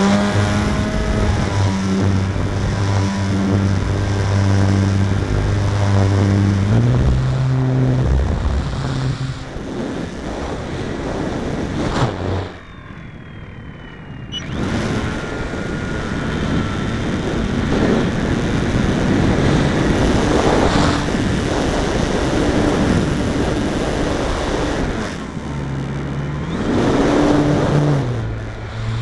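Great Planes Eagle 580's RimFire 42-50-100 brushless electric motor and propeller heard from on board in aerobatic flight: the prop hum climbs and drops in pitch as the throttle changes, with air rushing over the airframe. It throttles back for a quieter stretch of about two seconds near the middle, then the rush of air dominates before the pitch rises again near the end.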